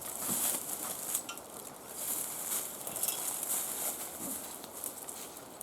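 Dry leaf litter and brush rustling and crunching in uneven surges as the ladder tree stand's metal base is pulled out across the forest floor, with a few light metal clinks.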